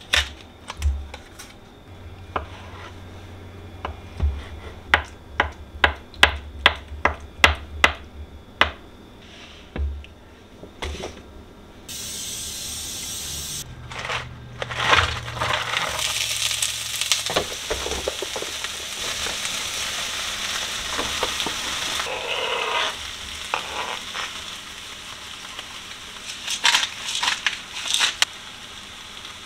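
A knife cutting a block of tofu on a cutting board, a quick run of sharp strikes; then food sizzling in a hot frying pan, and a few sharp shakes of seasoning over the pan near the end.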